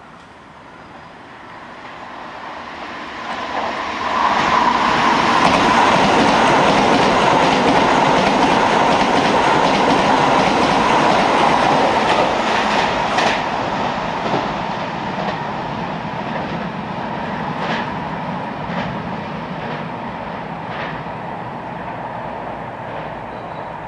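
Keisei 3000 series electric train passing through a station without stopping, its wheels clacking over the rail joints. The sound builds over the first few seconds, is loudest for several seconds as the cars go by, then fades, with a few sharp clicks as the last wheels cross the joints.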